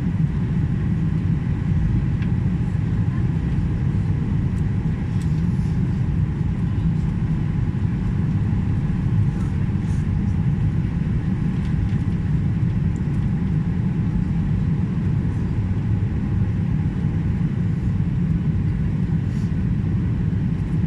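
Steady low rumble of an airliner cabin in flight on approach: jet engines and airflow noise.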